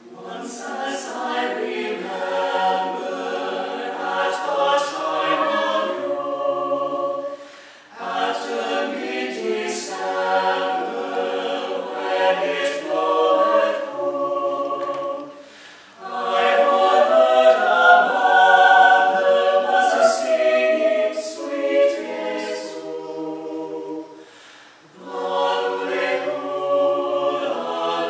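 Small mixed choir of men's and women's voices singing a cappella. The singing comes in long phrases of about seven to eight seconds, with brief breaks for breath between them.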